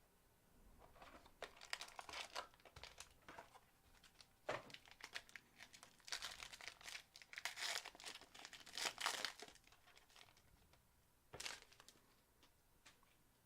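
Plastic wrapping crinkling and tearing as a sealed box of trading cards is opened by hand. It comes in irregular rustling bursts, busiest from about four to nine seconds in, with one last short rustle near the end.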